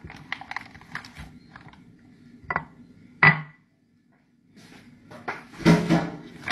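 Small knocks and clatter of things being handled on a table, with a sharper knock about two and a half seconds in and a ringing clink just over three seconds in. The sound drops out completely for about a second, then comes back with louder handling noise and a thump near the end.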